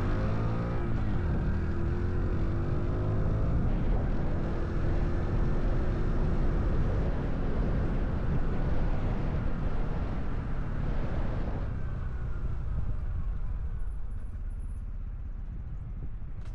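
Honda Cub 125 cc motorcycle's single-cylinder engine and exhaust under way, with wind and road noise; the engine pitch rises and falls in the first few seconds, and the wind and engine noise ease off about twelve seconds in.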